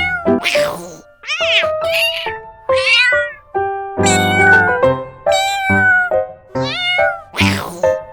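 Domestic cat meowing repeatedly, about eight or nine meows in quick succession, most of them falling in pitch and one longer call about four seconds in.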